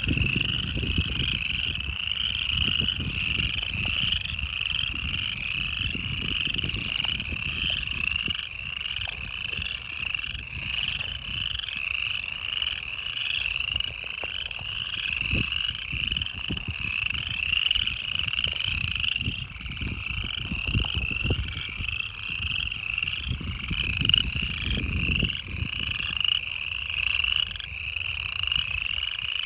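A dense chorus of many frogs calling from a marshy pond: a continuous mass of rapid, overlapping high-pitched calls, with an uneven low rumble underneath.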